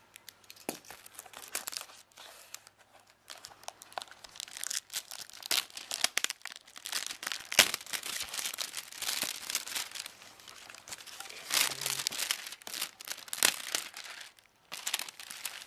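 Plastic shrink wrap crinkling and tearing as it is peeled off a cardboard box, a dense run of irregular crackles with a brief pause near the end.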